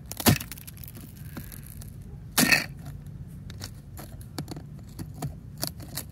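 Metal teaspoon tapping and breaking into a crust of hard snow: small crackles and clicks, with a sharp crunch just after the start and a longer, louder crunch about two and a half seconds in.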